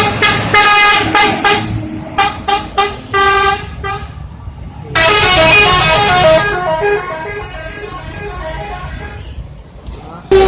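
Bus telolet horn, a multi-trumpet musical horn: a quick string of short toots, then a longer melody of stepping notes that fades away, and one more short toot near the end.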